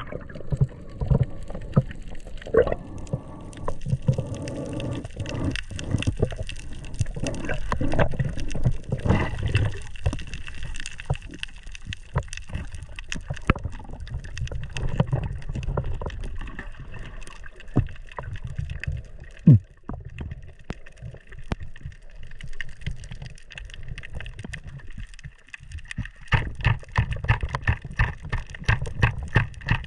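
Underwater sound picked up by an action camera in its housing: a continuous low rumble of water moving past, with many scattered clicks and crackles and one sharper click a little under twenty seconds in.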